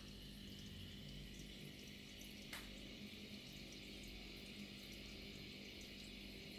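Faint steady bubbling of aquarium water from a rising stream of air bubbles, with a low steady hum underneath and one light click about two and a half seconds in.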